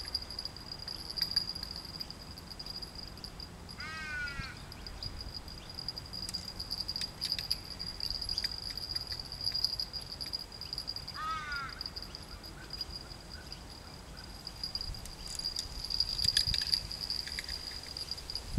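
A crow calling twice, a short run of falling caws each time, about four seconds in and again after eleven. Under it runs a steady high-pitched insect drone, with light wind rumble.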